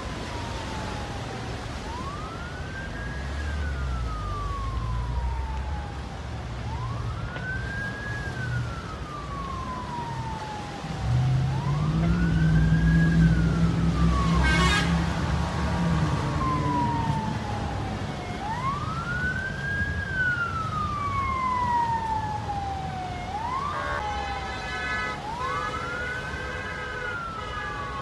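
Emergency vehicle siren wailing over and over, each cycle a quick rise in pitch followed by a slow fall, about every five to six seconds. A low rumble runs under it, with a low steady drone for several seconds near the middle.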